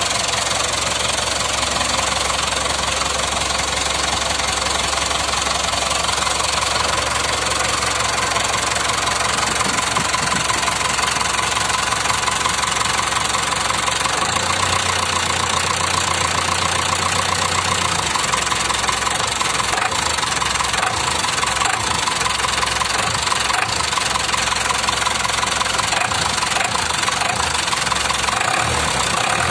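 Perkins diesel engine in a Chevrolet C10 idling with a steady diesel knock. Its note shifts for a few seconds around the middle as the injection pump's throttle lever is worked by hand, and shifts again near the end.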